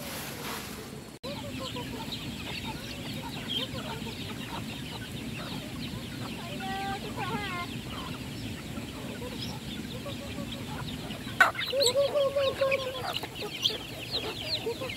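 A flock of hens and chicks feeding on scattered corn: high, rapid cheeping from the chicks over low clucking from the hens. About eleven seconds in there is a sharp knock, and the clucking grows louder and quicker after it.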